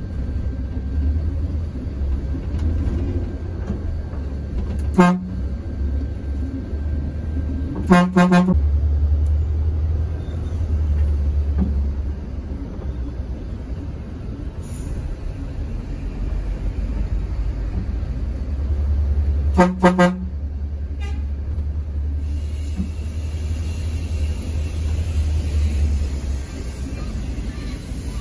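Steady low rumble of a Mercedes-Benz OH 1626 coach's engine and road noise, with a vehicle horn tooting: one short toot about five seconds in, a double toot about eight seconds in, and another double toot about twenty seconds in.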